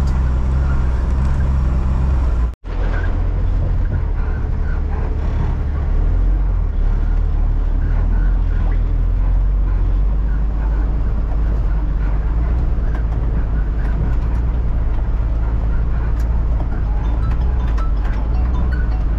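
A heavily loaded truck's diesel engine drones deep and steady as the truck crawls over a rough dirt mountain track, heard from inside the cab. The sound cuts out for an instant about two and a half seconds in.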